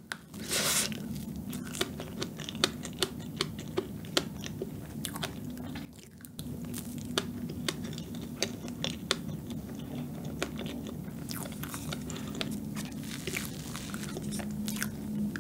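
Close-miked chewing of a mouthful of fresh-cream sponge cake: many small wet mouth clicks and smacks, with a louder bite or slurp about half a second in.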